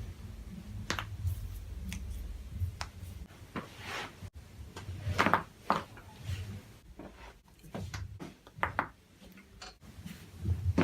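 Chiropractic adjustments: a series of short, sharp cracks and pops from joints being manipulated, the loudest about halfway through, with low handling thuds early on.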